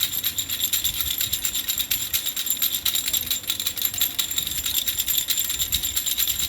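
Baby's rattle (khulkhula) shaken continuously: a fast, steady rattling of many small clicks with a bright metallic jingle.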